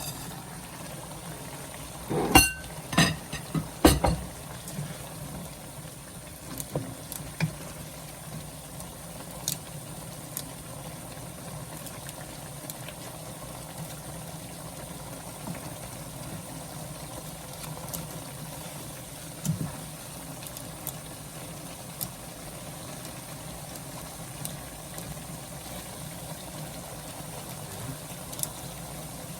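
A pan of noodle broth on the stove, with a few sharp knocks of a utensil against the pan about two to four seconds in. After that comes a steady low hum with the broth's faint bubbling and an occasional small click.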